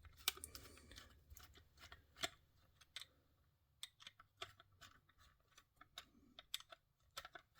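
Faint, irregular small clicks and taps from a diecast model car and its plastic display base being handled while the screw holding the car to the base is undone.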